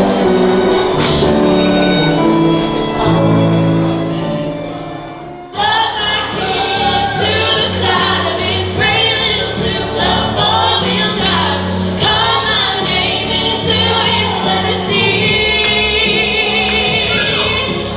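A violin playing held notes over keyboard, cut off suddenly about five and a half seconds in. It is followed by three female singers singing together in harmony.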